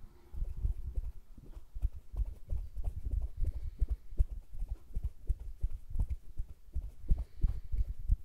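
Close-up ASMR hand sounds: fingertips rubbing and flicking against each other right at a stereo microphone's capsules. They make a quick, irregular run of soft low thuds, several a second, with light crackle.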